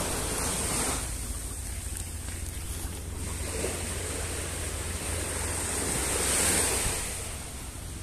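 Sea waves washing ashore, with wind buffeting the microphone in a low rumble; a wave swells and breaks about six seconds in.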